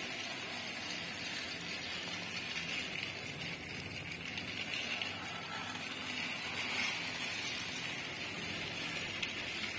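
Motorised toy Thomas the Tank Engine running around a plastic track pulling wagons: a steady whir of its small motor and wheels.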